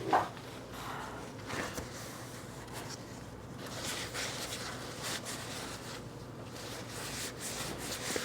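Faint handling noises of small lathe headstock parts being turned over and looked at: soft scattered clicks and rustles, with one short louder knock just after the start, over a low steady hum.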